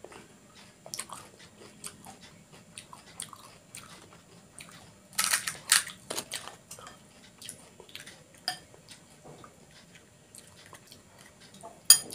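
Crisp panipuri shells crackling and crunching as they are cracked open with the fingers and chewed, with a cluster of loud crunches about five to six seconds in and a sharp crack near the end.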